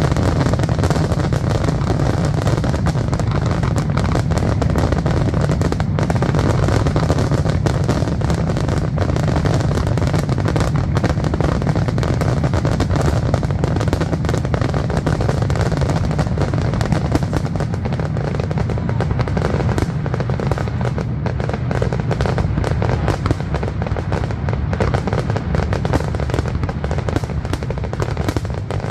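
Aerial fireworks going off in rapid, continuous succession, many bangs and crackles overlapping with no let-up, over music playing underneath.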